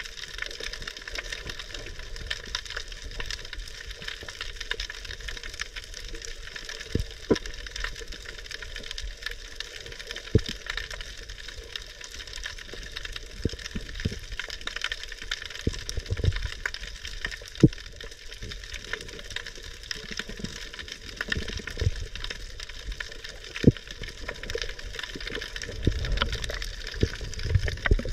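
Underwater ambience through a waterproof camera housing on a spearfishing dive: a steady crackling hiss, with several sharp knocks spread through it. Near the end, a low rushing of water builds as the diver rises toward the surface.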